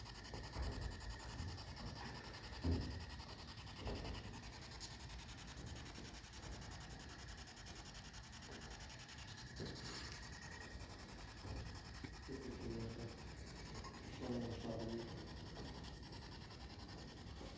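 Quiet room tone with faint rubbing and handling noise on a hand-held phone's microphone, a few soft knocks, and two brief faint low voices in the second half.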